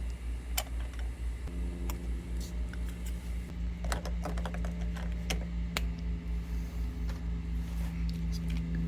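Scattered small clicks and taps of a 9-volt battery and its plastic compartment being handled and fitted in a Schlage keypad door lock, over a steady low hum.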